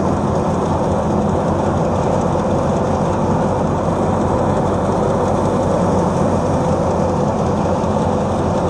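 Tractor-driven wheat thresher running steadily under load as wheat sheaves are fed into it: a loud, even machine drone with a low hum.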